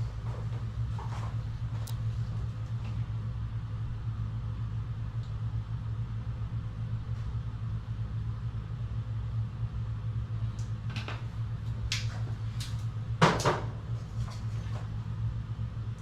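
Steady low mechanical hum with scattered light clicks and knocks, the loudest knock about thirteen seconds in.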